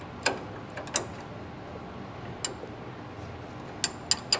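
Sharp metallic clicks of a wrench working a nut on a car's steering linkage, a few spaced irregularly with three close together near the end.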